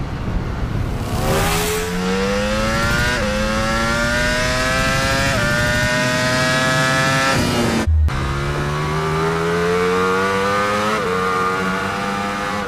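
Ducati Panigale V4's V4 engine accelerating hard on track, pitch climbing and stepping down at each upshift as it pulls through several gears. The sound cuts out for an instant just past the middle, then another full-throttle pull begins.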